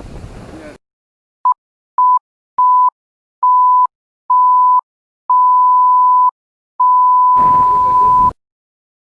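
An edited-in censor-style bleep: a pure 1 kHz beep tone sounded seven times, each beep longer than the one before, from a short blip to about a second and a half, cut in over digital silence. Outdoor wind noise ends about a second in, and a burst of it returns under the last beep.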